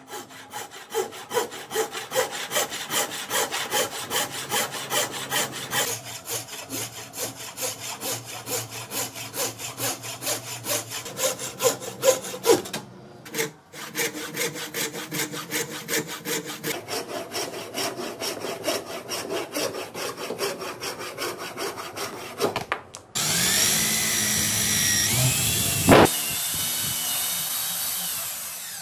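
Scroll saw's thin vertical blade cutting through a thick hardwood block in fast, rhythmic strokes, with a short break about halfway. Near the end an electric drill takes over, its motor whine rising and then holding steady as the bit bores into the wood, with one sharp crack partway through.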